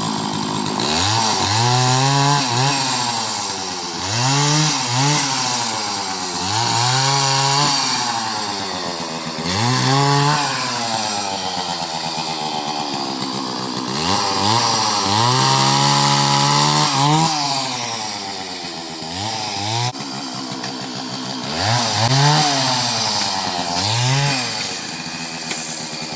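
Chainsaw revved up and let fall back again and again, about nine times, the engine pitch climbing and dropping with each squeeze of the throttle, as when cutting a coconut.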